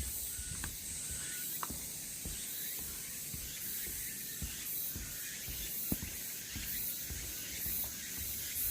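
Cicadas buzzing in a high, pulsing drone, with soft footsteps underneath.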